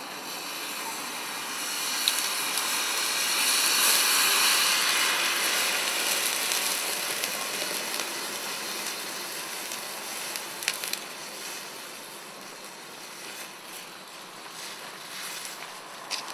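Thermite burning in a clay pot and spilling molten iron into a pan of sand: a rushing noise that swells over the first few seconds, is loudest about four seconds in, then slowly dies down. A few sharp cracks come near the middle.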